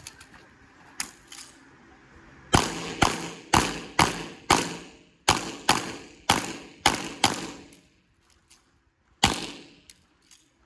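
Pistol fire in rapid succession: about ten shots in quick pairs over some five seconds, then one more shot after a two-second pause.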